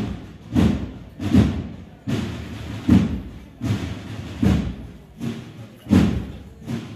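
A drum beating a slow, steady march, about four hits every three seconds.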